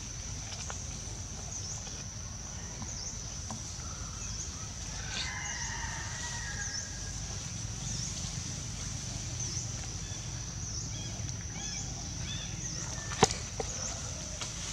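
Outdoor ambience: a steady high-pitched buzz that dips at regular intervals, with faint chicken clucking about a third of the way in. A single sharp click sounds near the end.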